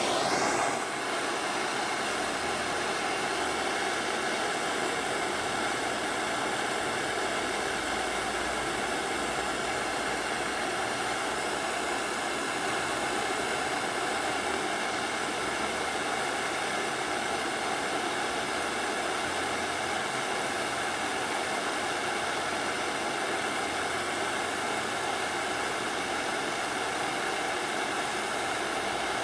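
Hand-held gas blowtorch on a fresh, hotter fuel cylinder, lit with a sudden start and then burning with a steady hiss, heating an aluminium crankcase for a solder-rod repair.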